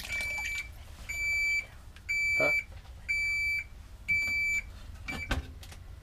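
Haier HLP21N compact washer beeping: a high electronic tone about half a second long, repeating once a second five times, then a brief sixth beep. It is the machine's warning that the lid is open once the tub has filled, and it stops as the lid is shut with a soft knock near the end.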